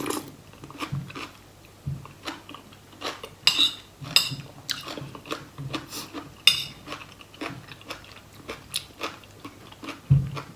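Close-up eating sounds: wet chewing and lip smacks, with a metal spoon clicking and clinking against a ceramic bowl several times at irregular moments.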